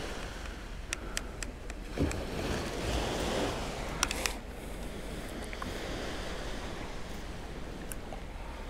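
Perforated metal beach sand scoop being shaken: a few sharp metal clicks and a thud, and a rush of dry sand sifting out through its holes. From about five seconds in only a steady hiss of wind and surf remains.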